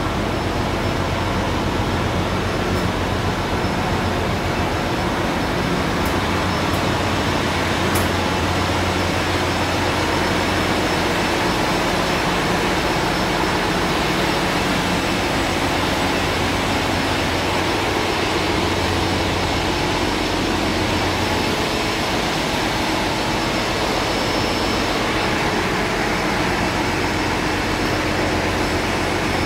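Large marine diesel main engine running in a ship's engine room: a loud, steady mechanical din with a strong low hum, with one brief click about eight seconds in.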